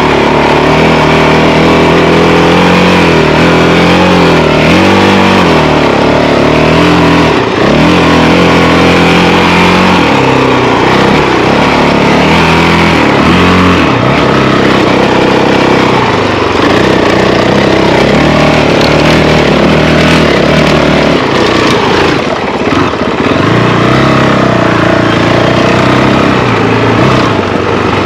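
Honda CRF450L's single-cylinder four-stroke engine running under way on a dirt track, loud and close, its pitch rising and falling over and over as the rider works the throttle.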